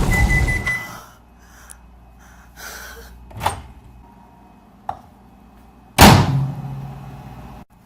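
The tail of an explosion sound effect dies away over the first second. A few faint clicks follow, then about six seconds in a sudden loud thud like a microwave door being opened. A low hum comes after it and cuts off abruptly.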